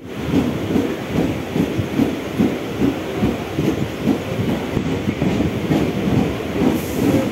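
Mumbai suburban local (EMU) train running, heard from inside the coach by the doorway: steady rumble with wheels clicking over rail joints at about two to three beats a second.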